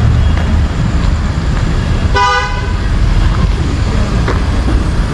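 A vehicle horn gives one short honk about two seconds in, over a steady low rumble of street traffic.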